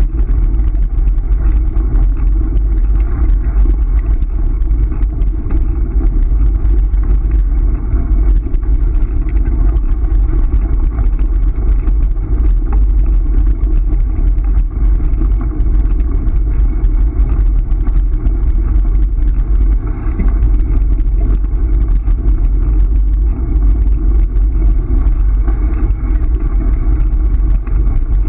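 Steady rumble of a dog scooter's tyres rolling over a gravel road, with wind buffeting the microphone and a constant patter of small rattles and clicks.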